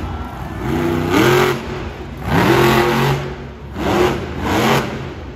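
Scooby-Doo monster truck's supercharged V8 revving hard in four bursts, the pitch sweeping up with each blip of the throttle.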